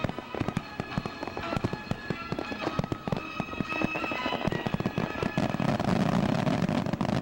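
Aerial fireworks display: shells bursting with rapid crackling and popping, growing denser and louder in the second half as a large burst fills the sky.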